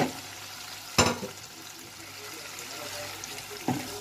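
Onion-spice masala sizzling in oil in a frying pan as chopped tomato goes in and is stirred with a spatula. Two sharp knocks about a second apart at the start, and another near the end, are the loudest sounds.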